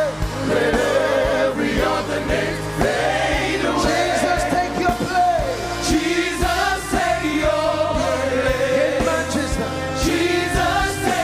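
Gospel worship music: a choir singing over a band with bass and drums.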